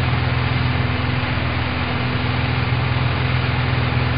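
Small single-engine propeller plane in flight: a steady engine drone with a fast, even pulse.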